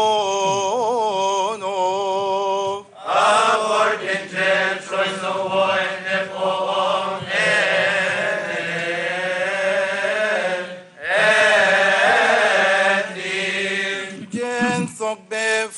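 Coptic Orthodox liturgical chant: male voices singing a slow, melismatic hymn, the pitch winding around each held note. There are short pauses for breath about three seconds in and again near eleven seconds.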